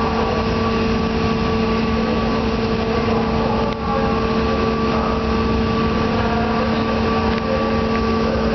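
Steady hum of a car ferry's engines and onboard machinery under way, with a constant low drone and a rumbling noise underneath.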